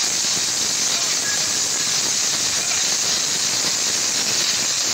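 A steady, loud, high-pitched hiss that does not change.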